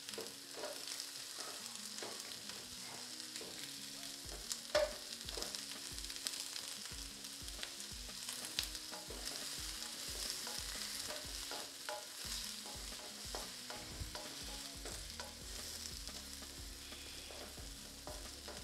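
Onions, carrots and bell peppers sizzling in oil in a pan while they are stirred, with a steady high hiss and small irregular ticks of the utensil against the pan, one louder knock about five seconds in.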